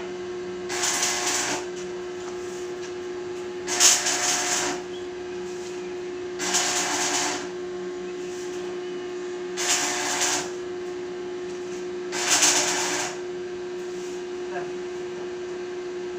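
Electric arc welding in short runs: five hissing, crackling bursts of about a second each, spaced roughly three seconds apart, typical of tack welds on a steel gate frame, over a steady hum.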